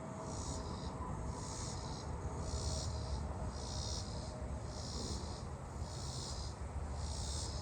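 Robinson's cicadas singing: a high-pitched pulsing buzz, about one pulse a second, over a low rumble.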